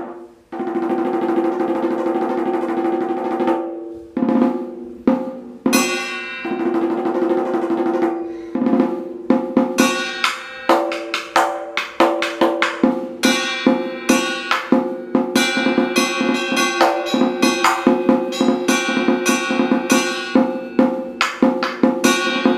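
Vietnamese trống chiến (battle drum) played with two wooden sticks: a sustained roll on the hide head for the first few seconds, a few separate strokes, then from about ten seconds in a fast, driving run of strokes, the head ringing at a steady pitch throughout.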